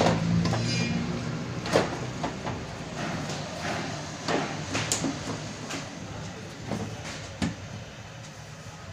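Scattered knocks and clicks from the air filter housing of a Honda Activa scooter being handled and pushed back into place by hand. The sharpest knock comes about two seconds in, with others around the middle and near the end.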